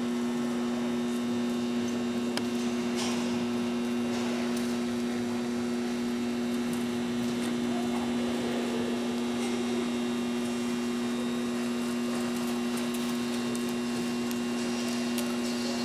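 Steady electrical hum, two low tones held level throughout, over a faint hiss of room noise with a few faint ticks.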